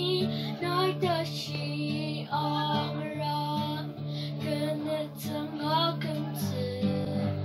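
A young girl singing a song, accompanied by an acoustic guitar whose notes ring out in a steady, repeating pattern beneath her voice.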